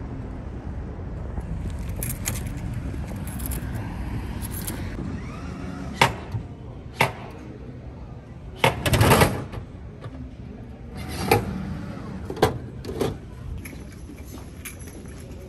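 Steady background noise with about half a dozen sharp knocks and clicks, the loudest a short rattling clatter about nine seconds in.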